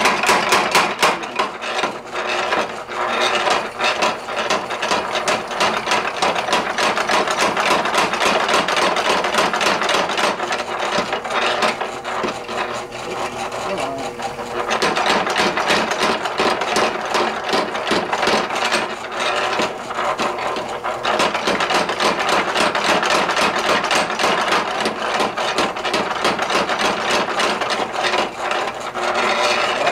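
Belt-driven mechanical power hammer running, its ram striking a hot steel hammer head between the dies in a rapid, steady run of blows while the cross peen is forged. The blows let up for a couple of seconds about halfway through, then resume.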